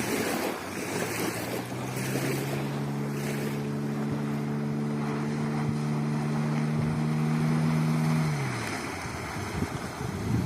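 Boat outboard motor, being run in, running at steady revs over the hiss of water and wind on the microphone; about eight seconds in its note drops away.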